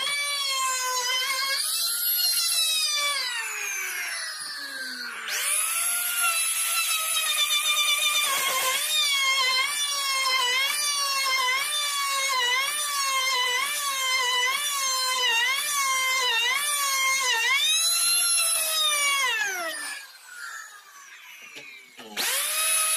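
Electric plunge router cutting into a wooden window-frame piece. Its high motor whine dips in pitch again and again as the bit bites into the wood and bogs down under load. It winds down twice, starting up again after a second or so the first time and near the end the second time.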